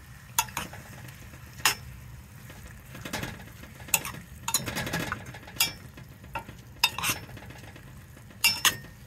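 Metal spoon stirring a thick vegetable curry in a stainless steel pot, scraping through the food and clinking against the pot's sides in irregular sharp clinks over a low steady hum.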